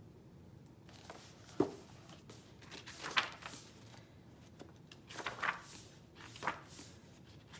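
Pages of a hardcover book being turned and handled: a few soft paper rustles and light taps, the sharpest about one and a half seconds in.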